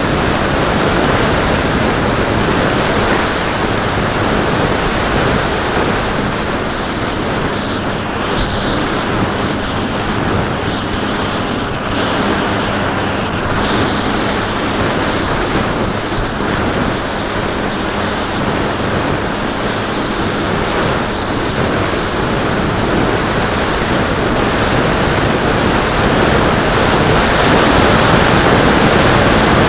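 Strong wind rush over the microphone of a camera mounted on a Bixler 2 foam RC plane in flight, with the steady hum of its brushless electric motor and propeller underneath. The rush grows a little louder near the end.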